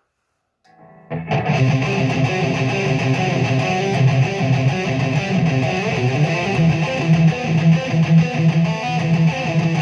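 Distorted electric guitar playing a busy metal riff, starting suddenly about a second in after a moment of quiet.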